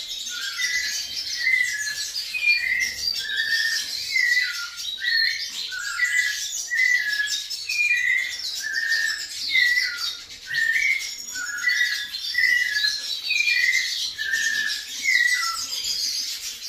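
White-necked thrush (sabiá-coleira) singing in a cage: a steady run of short whistled phrases, about two a second, with higher thin notes mixed in.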